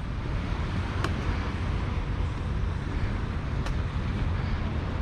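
Wind buffeting the microphone, a steady rumbling rush, with a couple of faint sharp clicks.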